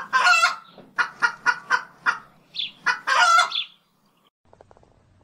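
Chicken clucking: a drawn-out squawk, then a quick run of about six short clucks, then another drawn-out squawk that ends at about four seconds. Faint clicking follows.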